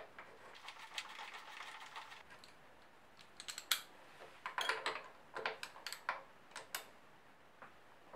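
Bolts being fitted into an aluminium motorcycle footpeg bracket by hand and with a socket ratchet. Faint handling noise comes first, then from about three seconds in scattered sharp metal clicks, several a second.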